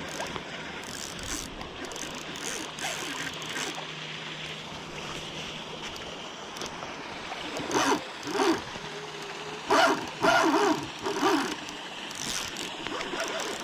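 Steady rush of river water. About eight seconds in come five or six short, loud, pitched calls spread over some three and a half seconds.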